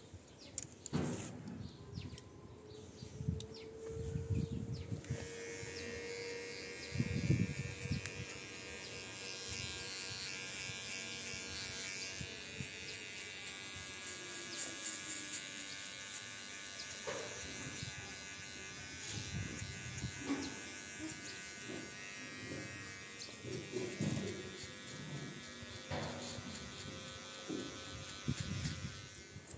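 Electric hair clippers buzzing steadily as they cut a boy's short hair, starting about five seconds in. Scattered low knocks come through the buzz.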